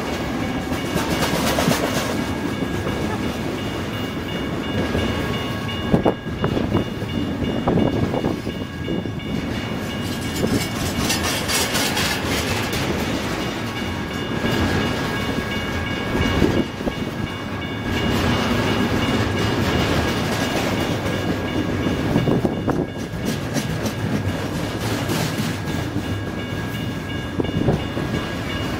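Double-stack intermodal freight train rolling past at close range: a steady rumble of wheels with clickety-clack over the rail joints and occasional sharp clanks, about six seconds in and again past the middle. A thin high ringing tone runs underneath.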